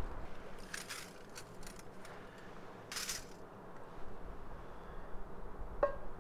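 Handling noises of sticks and dry forest floor: a few light crackles, then a brief rustle. Near the end comes a short metallic clink with a ring as a cooking pot's wire bail is hooked onto a wooden pot-hanger stick.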